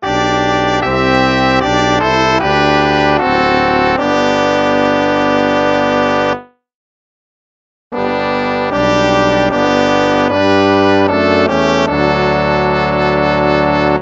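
Instrumental hymn music of slow held chords. It stops for about a second and a half a little past the middle, then a new passage starts.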